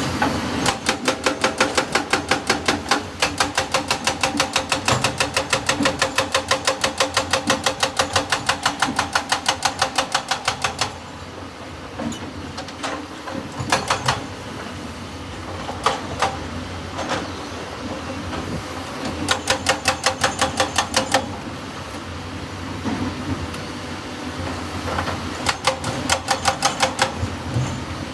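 Excavator running with its engine humming, broken by long runs of rapid, evenly spaced metallic strikes, several a second, and a few single knocks between the runs.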